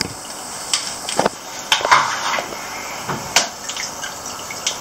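Water splashing and dripping off a soaked cloth bag holding a large red-tailed catfish as the bag is hoisted on a hanging scale, with several sudden splashes.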